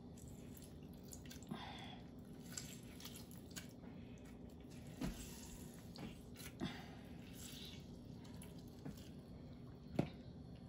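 Faint wet squishing and dripping as lemon juice is squeezed over pork belly in a soy marinade and the meat is worked by hand in a stainless steel bowl, with a handful of soft knocks scattered through it.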